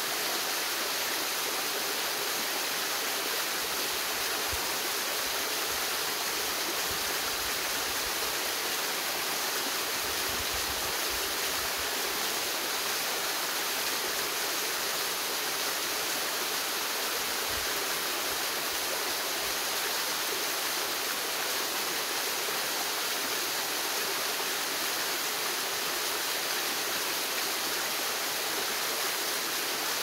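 Small waterfall cascading down a rock face into a shallow stream: a steady rushing splash of water.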